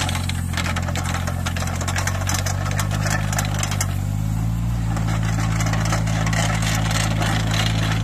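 Yanmar YTB800 mini excavator's engine running steadily while the machine digs, its note shifting slightly about four seconds in, with light scattered clatter over it.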